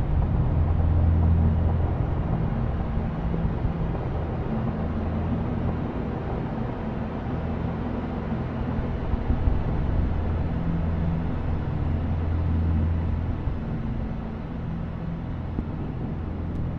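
Ambient synthesizer drone: deep sustained low tones that swell and fade slowly under a grainy, rumbling noise wash, layered through loopers and effects.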